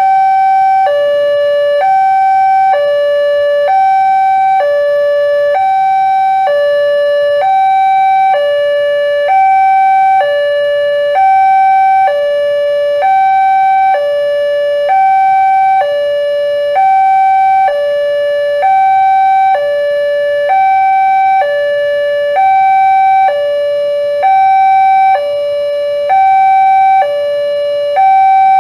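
Railway level-crossing warning alarm sounding a two-tone electronic signal. A higher and a lower tone alternate, each held a little under a second, repeating steadily. It signals that the crossing is closed for an approaching train.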